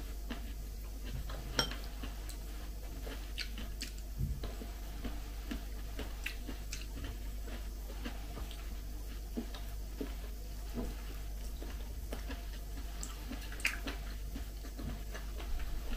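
Quiet eating sounds: a fork clicking now and then against a plate, with chewing, over a steady low hum.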